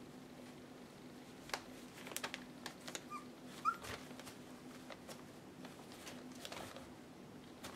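Young puppies shifting and scrambling on newspaper in a whelping box: scattered crinkles, scratches and taps of paws on the paper, with two short high squeaks from a pup about three to four seconds in. A faint steady hum runs underneath.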